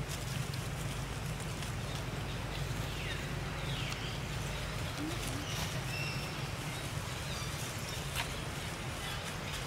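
Steady low rumble with a few faint, short high-pitched chirping animal calls and occasional light clicks.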